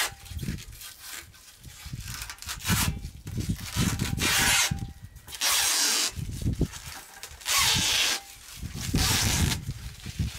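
Protective plastic film being ripped by hand off long white slats: a series of about five separate tearing rips, each lasting under a second. The film tears and comes away in pieces rather than peeling off whole.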